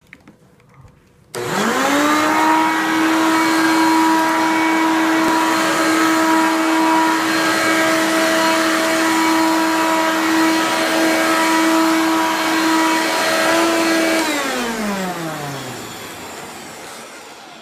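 Hoover PowerMax vacuum cleaner switched on about a second in, its motor spinning up quickly to a steady, really loud whine. Near the end it is switched off and winds down, the whine falling in pitch as it fades.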